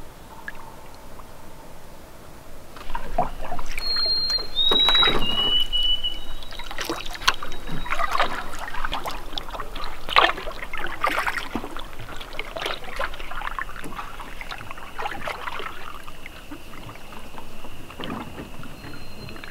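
Canoe paddle strokes: water splashing and dripping off the paddle in a steady rhythm of about one stroke a second, starting about three seconds in. A few short, clear whistled notes step down in pitch about four seconds in.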